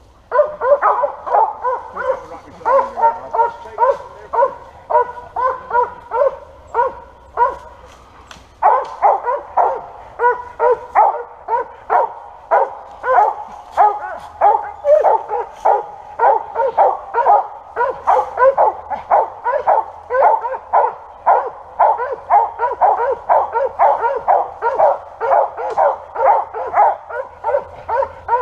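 Squirrel dog barking steadily at the foot of a tree, a fast run of barks about two or three a second, with a short lull before it picks up again louder. This is the treeing bark, the sign that the dog has a squirrel up the tree.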